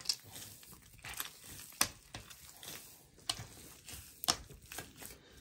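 Hands kneading an oily mayonnaise dough on a table, working in a little added water: quiet, irregular sticky smacks and tearing sounds as the dough is pressed and pulled apart.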